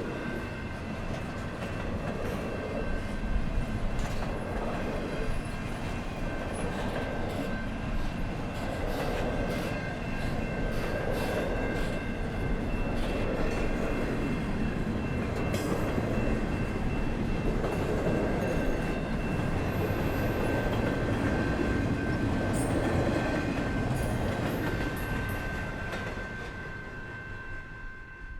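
Canadian National freight train rolling by: a steady rumble of wagons on the rails, swelling and easing about once a second, with scattered clicks and a thin, steady high-pitched ring from the wheels. It fades away near the end.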